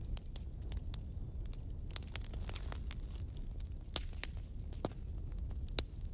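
Steady low hum under scattered small clicks and crackles of handling noise.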